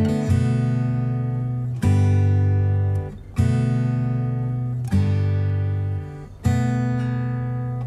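Background music: an acoustic guitar strumming chords, each struck about every second and a half and left to ring out before the next.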